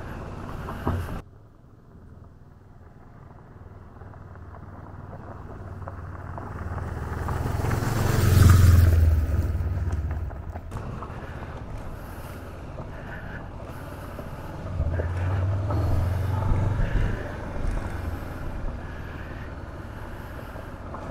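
Honda CB500X parallel-twin engine running on a ride, with a steady low drone. The sound drops suddenly about a second in, then swells to its loudest around eight seconds in and rises again around fifteen seconds in.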